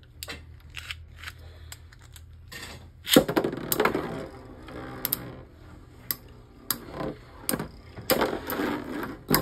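Two Beyblade spinning tops, one of them a Pegasus fitted with metal and 3D-printed upgrade parts, spinning and clattering against each other in a plastic stadium. They make a rapid run of sharp clicks, thickest about three seconds in and again near the end.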